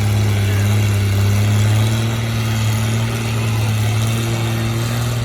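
Farm tractor engine running steadily under load while pulling a weight sled. It is a continuous low drone whose pitch rises slightly partway through.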